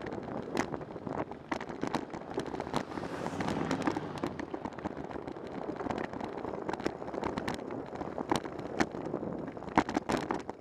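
Bicycle ride recorded from a bike-mounted camera: a steady rush of wind and road noise, broken by frequent irregular clicks and knocks as the bike and mount jolt over the pavement, the sharpest near the end.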